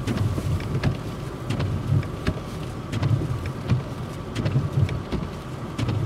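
Low car-engine rumble that swells and eases in patches, heard from inside a vehicle, with scattered light ticks over it.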